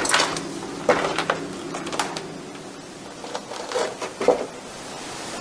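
A series of irregular knocks and thumps, about seven spread over several seconds, heard as footsteps somewhere in the empty building.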